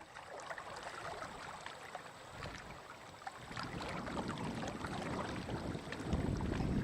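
Wind buffeting the microphone, building about three and a half seconds in and loudest near the end, over small scattered splashes and clicks of lake water lapping against shoreline rocks.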